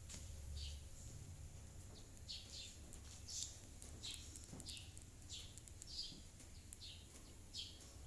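Faint bird calls: short high chirps repeating every half second or so, over a low rumble.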